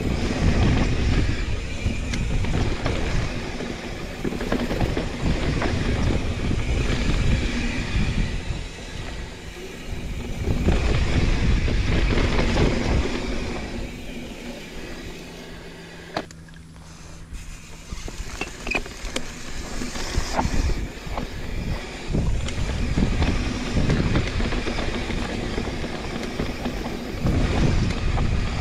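Wind rushing over the action-camera microphone, mixed with mountain bike tyres rolling over dry, sandy dirt during a descent. It eases off for a few seconds in the middle, with one sharp click, then picks up again.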